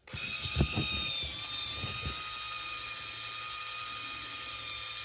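Motor drive of a Canon Sure Shot 80 Tele 35mm compact camera running steadily with a high whine, auto-loading a freshly inserted roll of film to frame one. A couple of light handling knocks in the first second.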